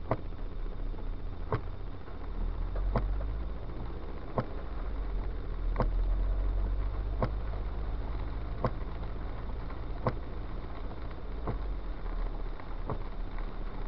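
Car cabin noise while driving slowly on a wet road: a steady low rumble of engine and tyres, with a sharp click repeating about every one and a half seconds.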